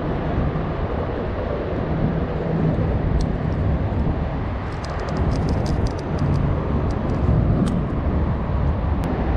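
Steady rumble of road traffic on the bridge overhead. About halfway through come a run of light metallic clicks as fishing pliers work a hook free from a small fish.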